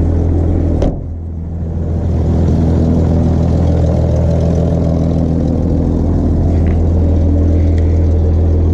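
A vehicle engine idling steadily. At about a second in, the sound drops off suddenly, then builds back up over the next second and holds steady.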